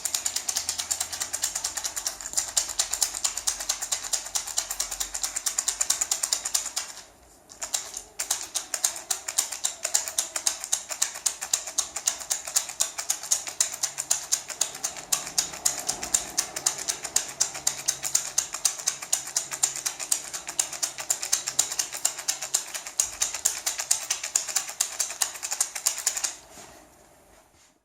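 Small gourd maraca (shaman rattle) shaken in a fast, even rhythm, its seeds rattling crisply against the dried gourd shell. The shaking breaks off briefly about seven seconds in, then resumes and stops near the end.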